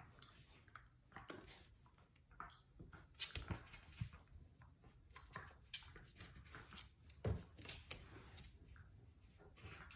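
Faint scuffling and rustling of two wire fox terriers play-wrestling on a plush dog bed, with a few soft thumps, the strongest about seven seconds in.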